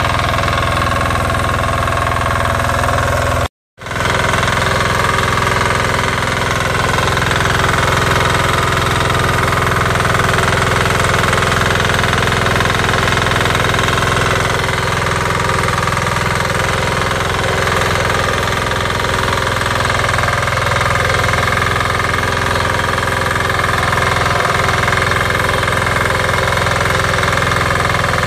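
The 12 hp single-cylinder diesel engine of a Weima BSR 1100 BE walk-behind tiller running steadily under load while its rotary tines till the soil. The sound drops out completely for a moment about three and a half seconds in.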